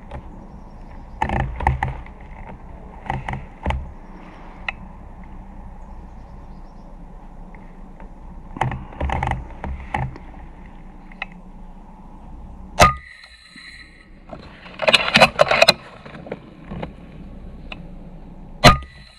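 Handling noise on a scope-mounted air rifle: scattered rustles, clicks and knocks. Two sharp cracks ring briefly, one about two-thirds through and the loudest just before the end.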